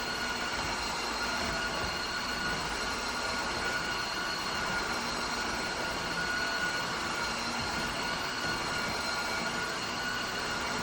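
Tineco Floor ONE S5 cordless wet-dry vacuum running steadily: a motor whine with a few steady high tones over a constant rushing noise.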